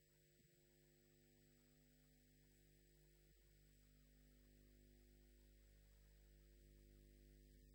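Near silence: only a faint, steady electrical mains hum in the recording, a low buzz with several steady overtones and a light hiss.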